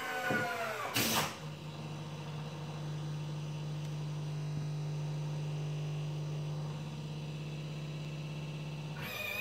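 Small electric motor of a model wheelchair lift whining and slowing in pitch as the fold-down ramp lowers, then stopping with a click about a second in. A steady low hum follows, and near the end another click as the motor starts again with a higher whine.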